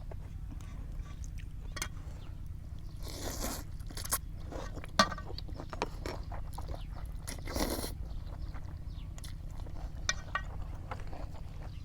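Close-miked eating of noodle soup: chewing and wet mouth sounds with many small clicks, and two longer noisy sounds, about three and seven and a half seconds in.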